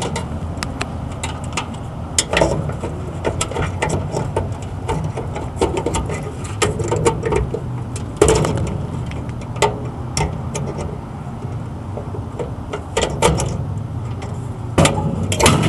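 Flathead screwdriver prying spade-connector wire leads off an air conditioner capacitor's terminals: scattered small metallic clicks and scrapes, with a few louder clacks about eight, thirteen and fifteen seconds in, over a steady low hum.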